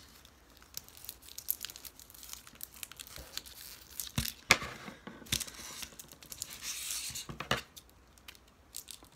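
Wrapping on a rolled diamond-painting canvas being torn and crinkled as it is opened, in irregular short rustles and snaps that come thicker and louder in the second half.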